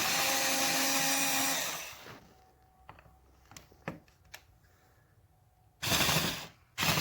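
Performax 4-volt cordless screwdriver's small motor running with a steady whine for about two seconds as it works on a screw, then stopping; a few light clicks follow, and near the end the motor runs again in two short bursts. The user finds it hard to press hard enough on the screw with one hand.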